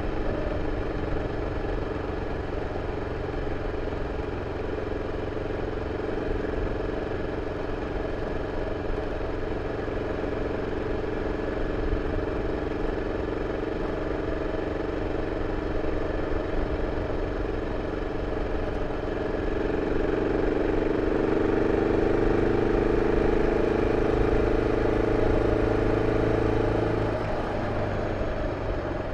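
BMW F 650 CS single-cylinder engine running through its stock exhaust, a steady drone. Partway through it grows louder for several seconds, then drops back suddenly near the end, as when the throttle is opened and then closed.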